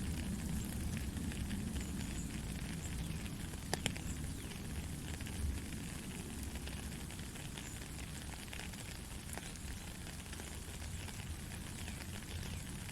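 Heavy rain falling steadily: a dense hiss with a strong low rumble underneath and scattered sharp drop ticks, one louder tick about four seconds in.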